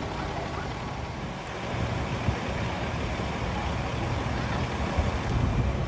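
Low rumble of vehicle engines and road traffic, with no single clear tone, growing louder near the end.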